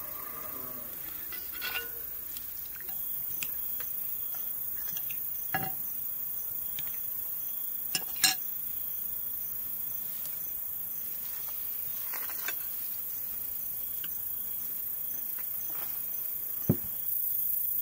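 A metal spoon clinks against a glass serving bowl and china plates as salad is dished out: a few sharp, scattered clinks, the loudest a quick pair about halfway through and one more near the end. Behind it runs a faint steady chirring of night insects.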